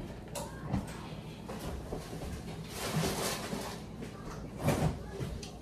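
Household handling noises in a kitchen: a soft knock just after the start, a longer rustle about three seconds in, and a louder knock or clatter near the end, like a cupboard or drawer being worked.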